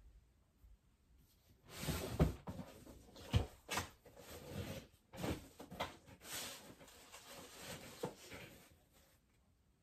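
Off-camera rummaging and handling: an irregular run of rustles, knocks and bumps that begins about one and a half seconds in and dies away near the end.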